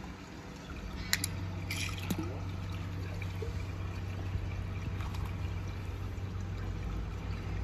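Water trickling and pouring over a steady low hum, with a few small clicks about a second in and again about two seconds in.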